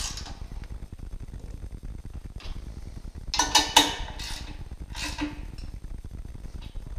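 Steel hand tools clinking on metal as the bolts of an alternator mounting bracket are snugged down with a socket wrench: quiet handling, then a cluster of ringing metallic clinks about halfway through and another about a second later.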